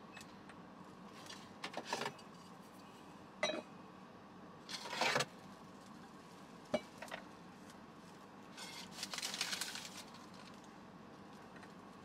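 Drink bottles being handled at the open door of a camper van's small built-in fridge: scattered clinks and rattles of glass and plastic bottles, the loudest about five seconds in, a sharp click a little later, and a longer rattle of bottles near the end, over a faint steady hum.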